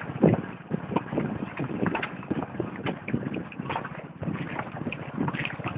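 Riding on a motorcycle: wind buffets the microphone, with frequent irregular knocks and rattles.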